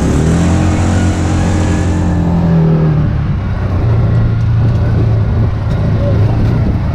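Engine of an off-road safari vehicle running as it drives along a dirt track. Its note rises for about two seconds, then drops back about three seconds in and holds steady and lower.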